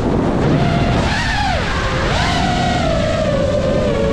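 Brushless motors and propellers of a 6S five-inch FPV quadcopter (iFlight Nazgul Evoque) heard from its onboard camera. The whine swoops up and down in pitch over the first two seconds as the throttle changes, then settles into a steady whine that dips slightly near the end, over a low rumble.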